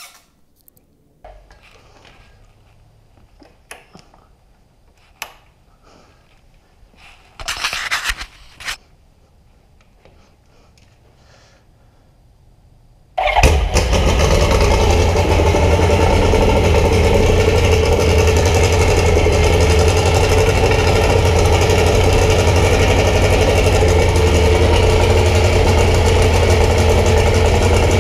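Rotax 912ULS flat-four aircraft engine running steadily on a test stand during a ground test run. It comes in abruptly about halfway through. Before that there are only a few faint clicks and a short rustling burst.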